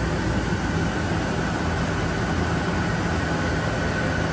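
Steady machine-shop background noise: a low hum and rush of running machinery, with a faint high whine that grows a little stronger near the end.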